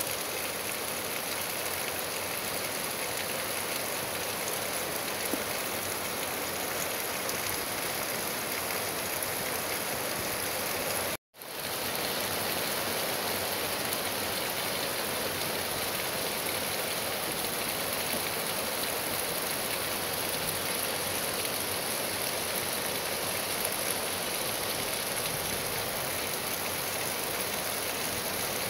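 Steady rain falling, an even hiss that drops out for a split second about eleven seconds in.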